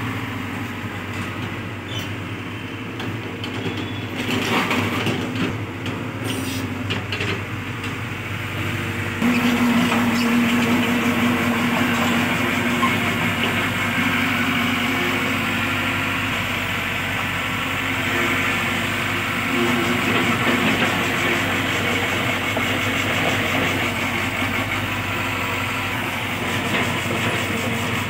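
Diesel engine of a Hyundai 80 mini excavator running steadily, stepping up to a louder, higher-throttle note about nine seconds in and holding there.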